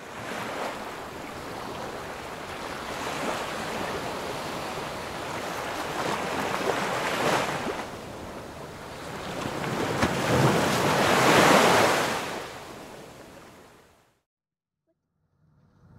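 Ocean surf: waves breaking and washing ashore in repeated surges, the biggest about ten to twelve seconds in, then fading out near the end.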